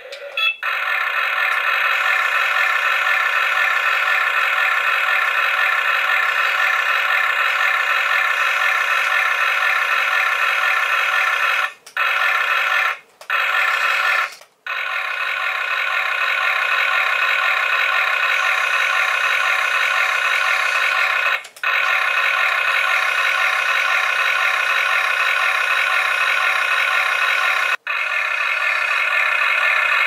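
Electronic sound effects from a toy RC excavator's small built-in speaker, a steady, bright, unbroken tone pattern with no bass. It cuts out briefly three times around the middle and twice more later.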